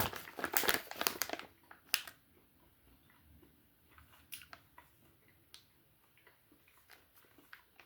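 Crinkling of a plastic snack pouch as a handful of dried cranberries is taken out, followed by soft, faint chewing clicks as they are eaten.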